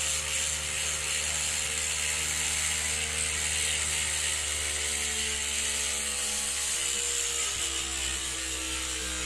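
Gyroscope's 730-gram aluminium flywheel rotor spinning on a 550 DC motor at about 4,000–4,500 RPM: a steady motor hum and whine, its pitch sinking slightly. A buzzing vibration runs through it, which the builder puts down to an imperfect centre hole in the rotor leaving a little play.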